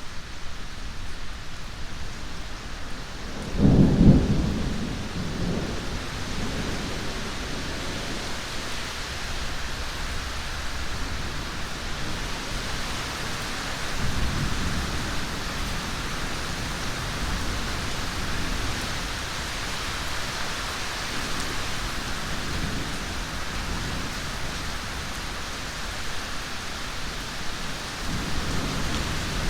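Steady heavy rain with a loud clap of thunder about four seconds in, rumbling off over the next few seconds, and fainter distant rumbles later on.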